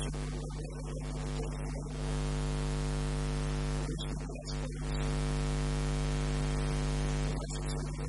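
Steady electrical hum with a buzzing series of overtones, under a loud even hiss of recording static. A man's voice comes through in short stretches near the start, around four seconds in and near the end.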